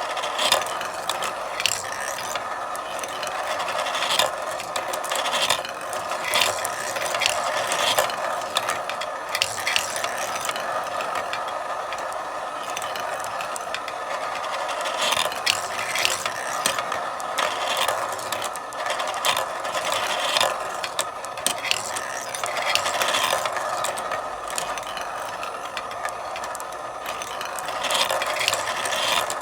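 Marble run in action: marbles rolling steadily along the track, with frequent sharp clicks and clacks as they strike the track and each other.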